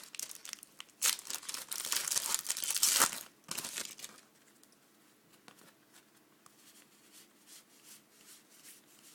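A trading-card pack wrapper being torn open and crinkled for about the first four seconds, then faint rustling and ticks as the cards are handled.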